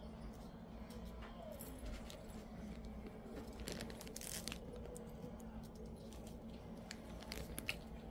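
Keychain metal rings and beads clicking and jingling faintly as they are handled, with a few light clicks around the middle and a sharper one near the end, over a steady low hum.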